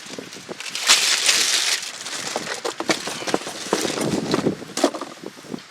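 Clatter of parts being handled during brake and hub assembly: irregular knocks, clicks and scraping, with a louder rustling scrape about a second in.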